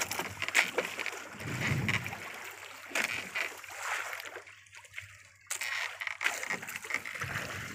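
Sea water splashing and sloshing against the hull of a small fishing boat in irregular slaps, easing to a lull just past the middle before picking up again suddenly.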